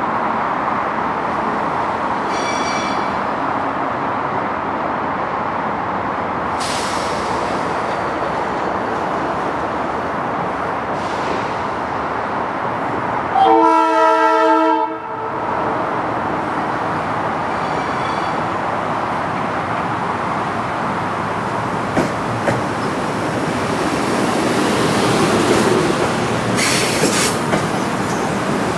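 A Metro-North electric multiple-unit commuter train runs steadily into the station, with one horn blast about halfway through that lasts about a second and a half. A few sharp clicks come near the end.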